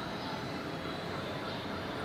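Steady city street ambience: a constant traffic rumble and hiss, with a faint high chirp repeating about four times a second.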